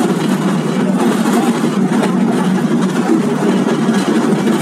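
San Francisco cable car running along its track: a steady rumbling and rattling ride noise, with no single knock or bell standing out.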